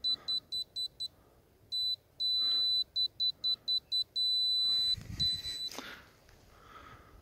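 Laser receiver beeping at a high pitch, in quick runs of about four beeps a second broken by longer unbroken tones, as it is moved across the laser beam. The unbroken tone marks the centre of the beam. The beeping stops a little before the end, with a low thump from handling just before it stops.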